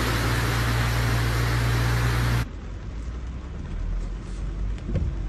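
Loud steady rush of heavy rain and floodwater in a street, with a low steady hum underneath. About two and a half seconds in it cuts abruptly to a much quieter, duller water noise.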